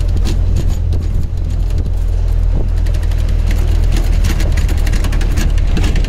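Vehicle driving along, heard from on board: a steady low engine and road drone with crackling noise on top.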